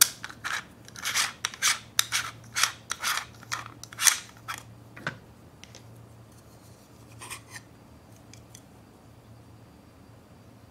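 Hard plastic parts of a Gudetama egg pudding maker being handled and twisted together, giving a run of short scratchy strokes at roughly two a second that stops about five seconds in. A few fainter strokes follow a couple of seconds later.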